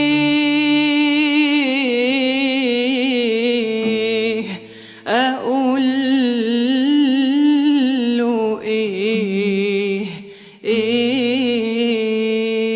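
A woman singing a long, ornamented Arabic melisma, holding notes with wide vibrato, with two brief pauses for breath about four and a half and ten seconds in.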